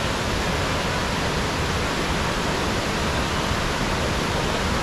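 Waterfall cascading over a broad rock slab: a steady rush of whitewater.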